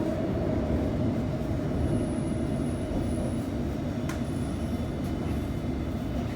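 London Underground train running, a steady low rumble of wheels on track. A faint high squeal comes and goes, and there is one sharp click about four seconds in.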